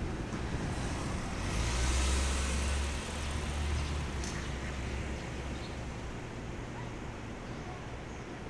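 JR E233-series electric train standing at a platform, its onboard equipment giving a steady low hum. About a second and a half in, a louder rush of hiss and low rumble lasts for about a second and a half, and a short click follows near the middle.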